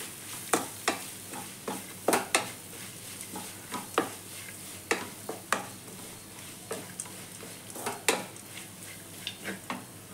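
Spatula stirring and scraping a mix of grated raw mango and capsicum frying in an aluminium kadai: irregular scrapes and knocks against the pan over a steady sizzle.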